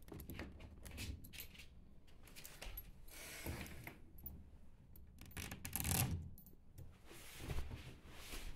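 Light metallic clinks and scraping of small metal pieces being handled, with a few louder rubbing and knocking sounds about three and a half and six seconds in.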